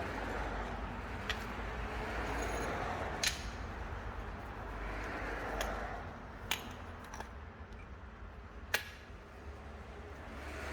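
About five sharp, separate metallic clinks of metal tools and parts being handled, spaced a second or two apart, over a low steady hum.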